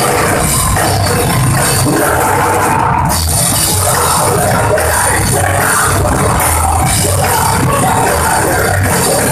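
A rock band playing loud and live: distorted electric guitars, bass and a drum kit with crashing cymbals. The cymbals and upper range drop out for a moment about three seconds in.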